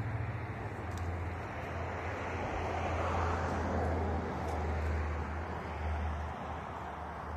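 A car passing on the street: road noise swells about three seconds in and fades, over a steady low hum.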